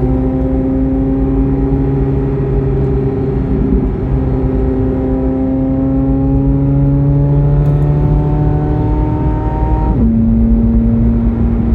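Chevrolet Corvette C8 Z06's flat-plane-crank 5.5-litre V8 pulling through a gear, its pitch climbing steadily for several seconds, then dropping sharply to a lower steady pitch with a gear change about ten seconds in. Steady road noise runs underneath.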